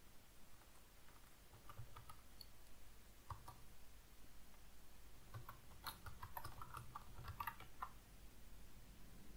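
Faint keystrokes on a computer keyboard: a few scattered taps in the first few seconds, then a quicker run of typing a little past the middle that stops about a second before the end.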